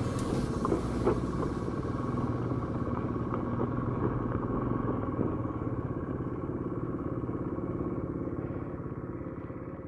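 Honda CT90's small single-cylinder four-stroke engine running steadily as the motorcycle is ridden, with a few light clicks in the first couple of seconds. The sound fades away gradually over the last few seconds.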